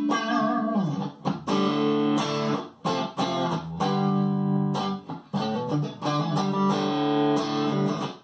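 Strat-style electric guitar played through a diode compressor pedal with the sustain turned up: a series of picked chords and notes, each attack evened out and left to ring on with long sustain.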